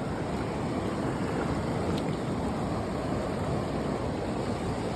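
Whitewater river rapids rushing in a steady, unbroken noise.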